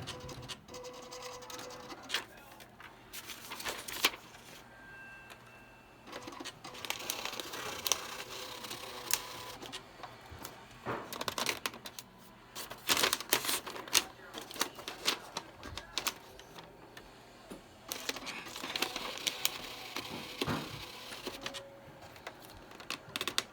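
Smith Corona typewriter being typed on: runs of rapid key strikes broken by short pauses, over a faint steady hum.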